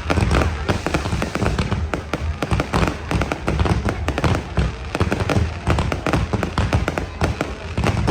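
New Year aerial fireworks going off in rapid, continuous succession: a dense run of bangs and crackles, many per second, with deep booms underneath.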